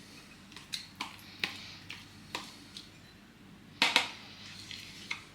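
Spoon knocking and scraping against a bowl while yogurt is scooped out. A string of light clinks and taps, with a louder cluster of knocks about four seconds in.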